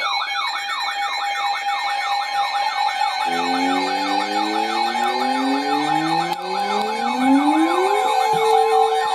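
Loud electronic emergency alert siren: a steady tone under a fast warbling sweep about three times a second. About three seconds in, a rising wind-up tone joins, climbing slowly and settling into a steady tone near the end.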